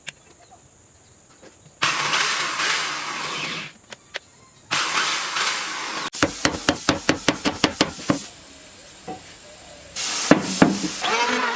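Electric power-tool motor, likely the drill driving a homemade lathe, switched on in three separate bursts. The middle burst has a rapid rhythmic ticking, about six a second. In the last burst the motor's pitch wavers up and down.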